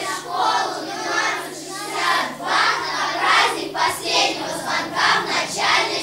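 A group of children singing, with a steady low hum underneath.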